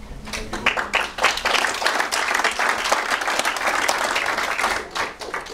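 Audience applauding, rising quickly at the start and dying away near the end.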